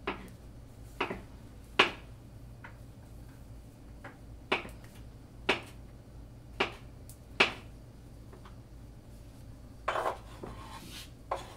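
Chef's knife slicing a banana on a plastic cutting board: single sharp taps of the blade on the board, about one a second and unevenly spaced. A short clatter comes near the end.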